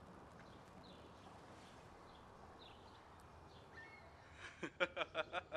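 Faint outdoor air with small bird chirps. About four and a half seconds in, a young man starts laughing, a quick run of loud "ha" pulses about six a second.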